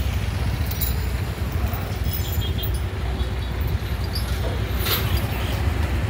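Steady low rumble of a motor scooter's engine and street traffic, with a sharp click about five seconds in.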